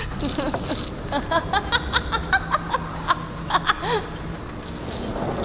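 A woman laughing: a rapid run of short, high-pitched laughs, about four a second, starting about a second in and tailing off near the end.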